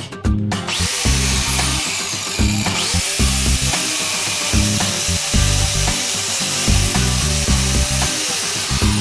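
Angle grinder with a CD mounted as its disc starts up under a second in and runs at speed, the spinning CD grinding into the felt of a tennis ball clamped in a vise. Background music with a steady beat runs underneath.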